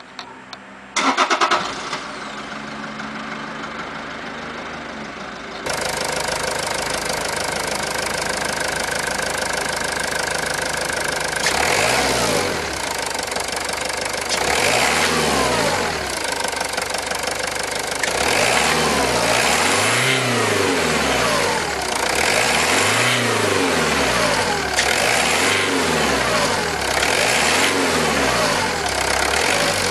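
Toyota Yaris 1.4 D-4D four-cylinder turbodiesel starting with a short loud burst about a second in, then idling, heard first at the tailpipe and then at the open engine bay. From about halfway on it is revved repeatedly, each rev rising and falling back to idle, roughly every three seconds.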